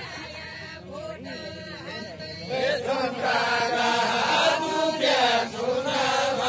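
Group of men singing a Deuda folk song of far-western Nepal, a chant-like melody. It gets louder about two and a half seconds in, with long held notes.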